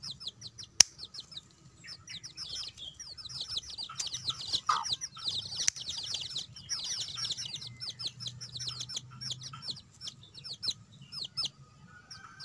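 Chicks peeping, a constant stream of short, high, falling chirps, busiest in the middle. A single sharp click stands out about a second in.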